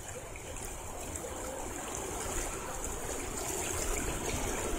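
River water flowing, a steady rush of moving current.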